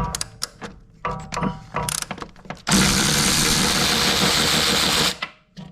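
A few sharp clicks of tools on metal, then a cordless impact wrench running hard for about two and a half seconds on a 15 mm strut mount bolt, cutting off abruptly.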